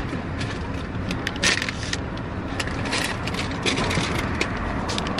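Low steady rumble inside a parked car, with scattered clicks and rustling as items are handled at the car window.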